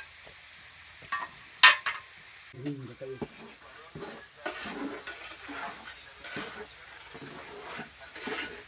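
Two sharp clacks of cut clay tile pieces knocking together, the second about two seconds in and the loudest, then wet tile mortar being stirred and worked by hand in a clay basin, a run of soft squelching scrapes.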